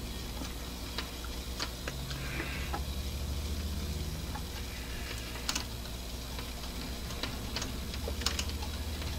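A threading die cutting a short thread on the end of a lathe leadscrew as the chuck is turned, giving a few sharp, irregular clicks and ticks over a low steady hum.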